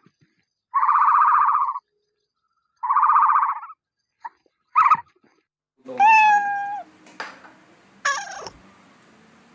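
Domestic cat meowing: about five separate meows. The first two are long and rough, and a clearer, slightly falling meow comes a little past halfway.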